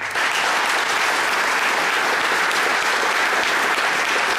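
Audience applauding steadily, with one pair of hands clapping close by.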